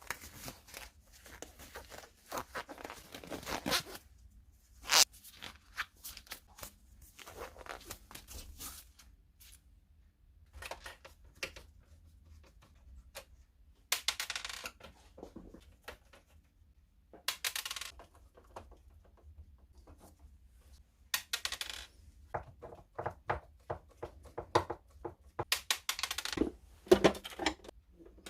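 Plastic parts of a Canon printer being handled and pulled apart: irregular clicks, clatters and short scraping rustles, with quiet gaps between.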